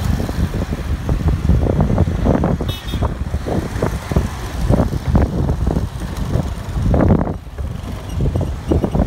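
Ride noise from a motorcycle moving through road traffic: engine running with irregular gusts of wind on the microphone and other vehicles around. A short high beep sounds about three seconds in.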